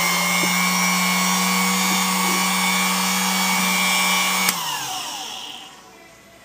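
Dumore high-speed sensitive drill press running with a steady whine. About four and a half seconds in it is switched off with a click, and the motor spins down with falling pitch.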